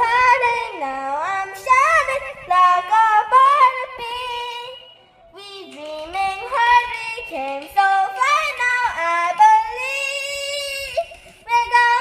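A high voice singing a melody alone, with sliding, bending notes and a short break about halfway through.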